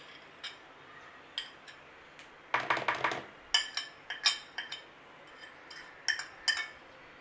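Metal spoon, table knife and glass dish clinking and scraping as solid ghee is scraped off the spoon into a bowl of flour: a quick run of scrapes about three seconds in, then a series of sharp ringing clinks.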